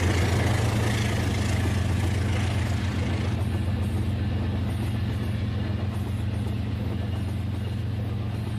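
Rail King remote-control toy train running along its track: the small motor's steady low hum under a rushing noise, slowly getting quieter.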